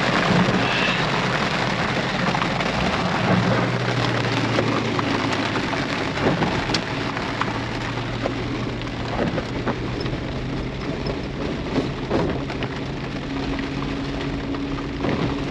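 Steady rain falling on a Jeep, with its engine running as a low steady hum underneath as it drives a wet dirt road. Occasional sharp ticks of heavier drops or knocks come through the rain.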